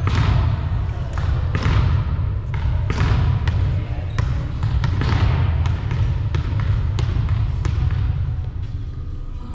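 Echoing gymnasium sounds of volleyball play: a string of sharp smacks and thuds from balls being hit and bouncing on the hardwood floor, about two a second. Distant voices and a steady low rumble run underneath.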